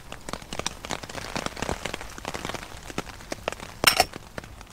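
Rain pattering on the tent fabric as irregular drops and ticks, with a brief louder rustle of handling about four seconds in.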